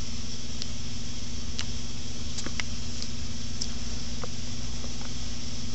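Steady low hum of background machine or room noise, with a few faint light clicks scattered through.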